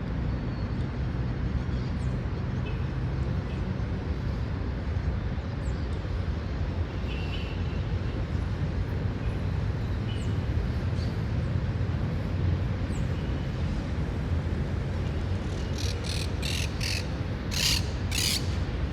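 Park ambience: a steady low rumble of city traffic or wind, with faint, scattered bird chirps. Near the end comes a quick run of about six short, harsh, hissy sounds.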